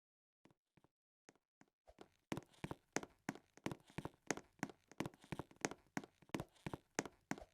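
A percussion instrument struck in a steady rhythm, about three hits a second, with stronger and weaker strokes alternating. A few soft taps come first, and the steady beat starts about two seconds in.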